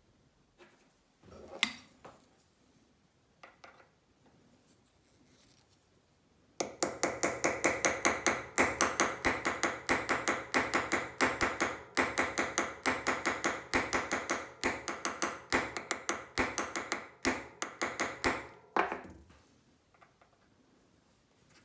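A rapid, even series of sharp metallic clicks or taps, about five a second, each with a short ringing tone. It starts about six and a half seconds in and stops a few seconds before the end, after a few faint scattered clicks.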